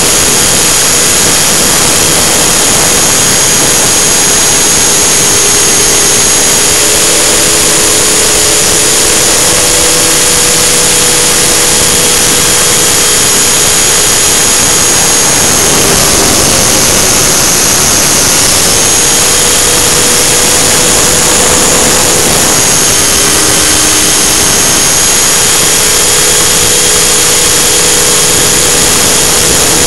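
Align T-Rex 600 radio-controlled helicopter heard from a camera on board in flight: a loud, steady drone of the drivetrain and rotor with a high whine over it, the pitch dipping briefly a few times and then recovering.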